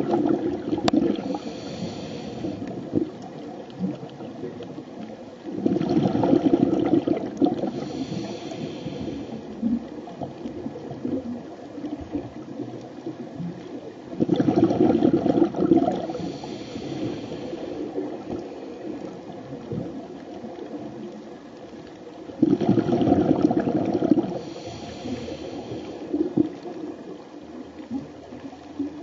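Scuba regulator breathing underwater: about every eight seconds a loud burst of exhaled bubbles rumbling, followed by a higher hiss, three times in all.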